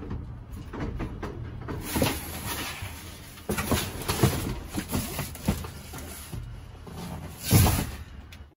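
Cardboard boxes and styrofoam packing being shifted and rummaged through in a dumpster: an irregular run of scrapes, knocks and rustles, loudest a little before the end.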